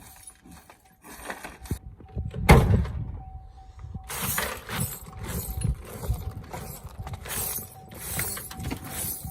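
Someone handling and knocking about an old car's body and interior: a heavy thud about two and a half seconds in, then an irregular run of rattling, scraping knocks, over a faint steady tone.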